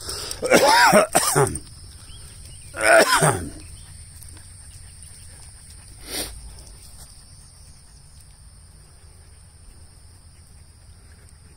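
Two short voice-like calls with bending pitch, the first about a second and a half long and the second shorter and falling away at its end; a brief faint sound follows a few seconds later.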